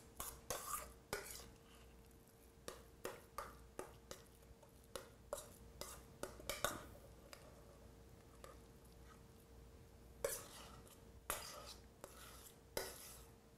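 A spoon scraping and clinking against the inside of a stainless steel pot as a thick cauliflower dough mixture is scooped out. Light, irregular clicks and short scrapes come through the first half, and a few longer scrapes come near the end, over a faint steady hum.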